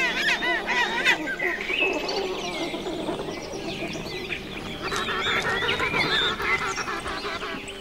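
Rockhopper penguin colony calling: many birds at once giving harsh, rapidly pulsed calls that overlap. The calls are densest at the start and again about five to six seconds in.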